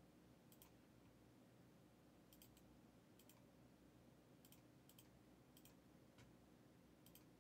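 Near silence broken by a dozen or so faint clicks from a computer mouse and keyboard, several in quick pairs.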